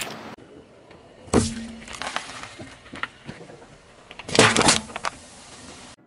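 Car tyre rolling onto an aluminium energy-drink can on asphalt: a sharp pop about a second and a half in, then a louder burst of crunching and crackling as the can is crushed, about four seconds in.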